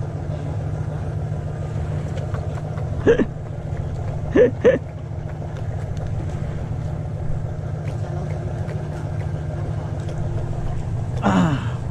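Engine idling steadily with a low, even drone. Short vocal exclamations break in about three seconds in, twice around four and a half seconds, and again near the end.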